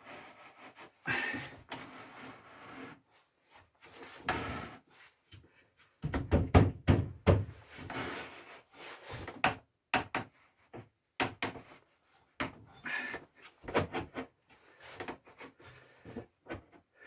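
Irregular wooden knocks, clunks and rubbing as a board is handled and clamped in a homemade workbench vise, with the loudest cluster of knocks about six seconds in.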